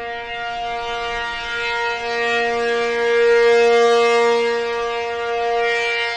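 ACA P-50 electromechanical outdoor warning siren sounding the steady Alert signal. Its note holds at an unchanging pitch, built of two main tones, while the loudness swells and fades as the rotating siren head sweeps past.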